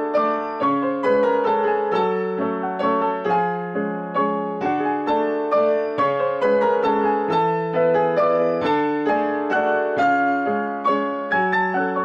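Background piano music: a gentle melody of single struck notes and chords, each note fading after it is played.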